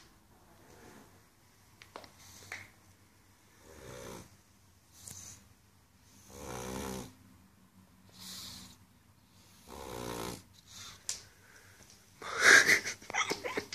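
A pug snoring as it dozes off on its feet: slow, heavy breaths roughly every two seconds, with a louder, choppier burst of noise near the end.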